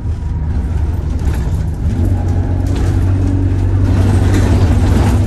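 Single-deck bus engine and drivetrain heard from inside the passenger cabin while under way, a steady low hum with light body rattles, getting louder about two seconds in as the bus pulls harder.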